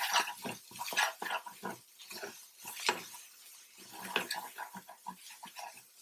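A spoon stirring and scraping a spice mixture around a cooking pan in short, irregular strokes.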